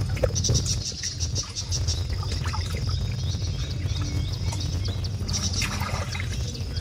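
Rapid, high-pitched chirping in two spells, one starting about half a second in and one near the end, over a steady low rumble.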